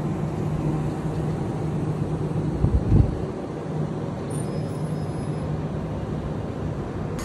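Southern Class 377 electric multiple unit at the platform, its equipment giving a steady low hum over a wash of station noise, with a brief low thump about three seconds in.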